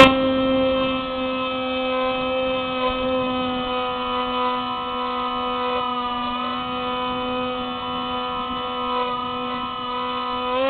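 Electric motor and propeller of a Spyhawk FPV model plane running at a steady cruise throttle, heard from the onboard camera as one even, humming whine. The pitch wavers a little midway and climbs as the throttle is opened near the end. A short pop comes at the very start.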